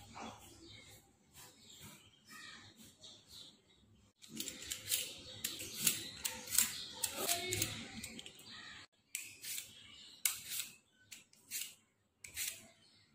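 Vegetable peeler scraping the skin off raw potatoes: a quick run of rasping strokes in the middle, then separate strokes with short gaps near the end.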